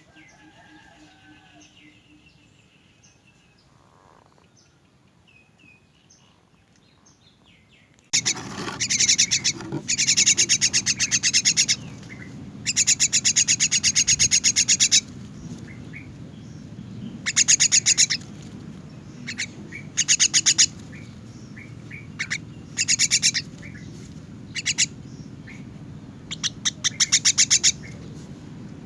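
Common myna chick giving loud, rapid, buzzy begging calls in repeated bursts of one to three seconds, typical of a nestling calling for food. The first several seconds hold only faint chirps.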